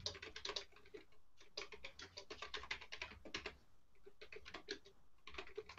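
Faint typing and clicking on a computer keyboard: irregular runs of quick keystrokes with short pauses.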